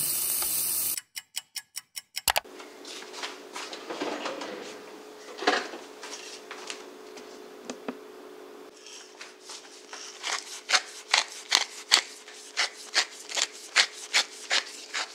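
Beef sizzling in a frying pan for about a second, then a quick run of clicks. From about nine seconds in, a pepper mill grinds over raw chicken in regular scraping strokes, about two a second.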